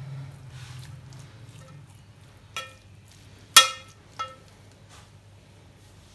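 A spoon knocking against a steel cooking pot while spaghetti is tossed in it: three clinks in under two seconds, each ringing briefly, the middle one loudest.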